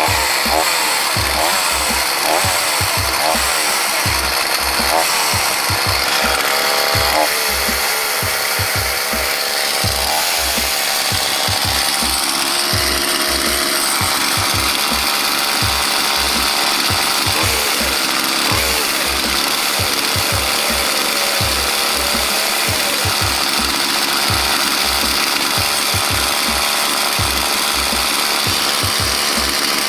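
Homelite UT 42cc two-stroke chainsaw running on its newly replaced carburetor, its pitch rising and falling through the first several seconds and then holding steadier.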